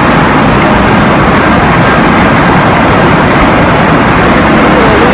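Loud, steady din of factory production-line machinery, the machines making and filling sauce bottles, with no clear rhythm.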